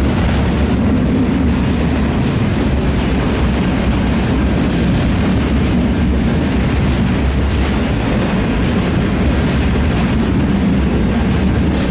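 Freight train rolling past at close range: a steady, unbroken noise of wagon wheels running on the rails, with no horn.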